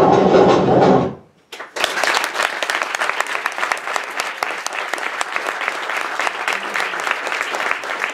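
A steady pitched sound cuts off about a second in. After a brief silence, an audience breaks into steady applause, many hands clapping at once.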